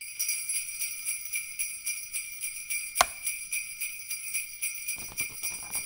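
Sleigh bells jingling in a steady shaking rhythm, about four shakes a second, with one sharp hit about halfway through. Lower thuds join in near the end.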